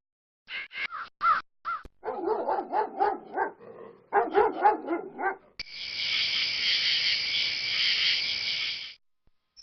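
A few short crow caws, then a dog barking in a quick run of barks, then a dense chorus of crickets chirping that stops about a second before the end.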